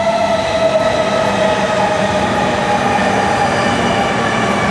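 E5-series Shinkansen cars running past at low speed as the train arrives and brakes, with a whine of several tones falling slowly in pitch over a steady rumble of wheels on rail.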